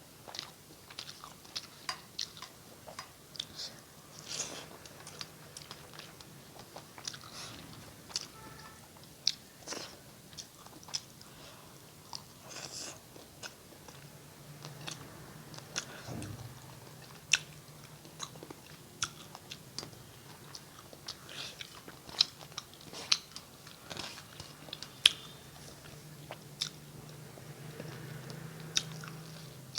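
Close-miked mouth sounds of a person eating rice and curry: chewing with irregular wet smacks, clicks and the odd crunch.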